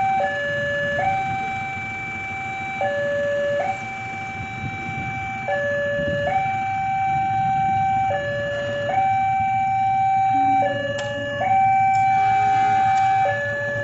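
Railway level-crossing warning alarm sounding a repeating two-tone signal: a higher tone held about two seconds, then a shorter lower tone, over and over, warning that a train is approaching and the barriers are closing.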